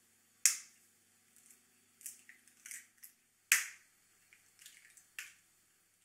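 Two eggs cracked into a mixing bowl one after the other: a sharp crack about half a second in and another about three seconds later, each followed by softer clicks as the shell is broken open.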